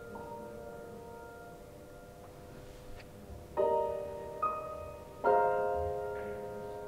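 Slow background piano music: sustained chords struck a couple of seconds apart, each left to ring and fade.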